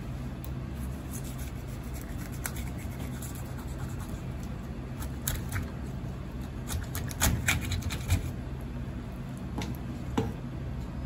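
Kitchen knife cutting into a whole fish on a cutting board: scattered short scrapes and clicks of the blade through scales and flesh, a cluster of sharper clicks around the middle, and a single knock near the end, over a steady low hum.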